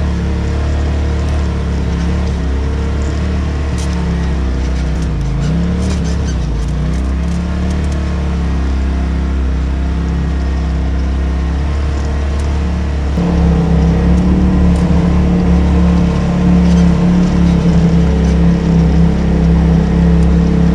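Polaris RZR side-by-side's engine running under load on a rough trail climb, with light rattles over it. The revs dip and pick up again a few seconds in. About 13 seconds in, the throttle opens and the engine gets louder and slightly higher in pitch.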